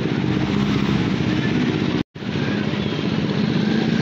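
Motorcycle engine running steadily while riding through a flooded street. The sound drops out completely for an instant about halfway through.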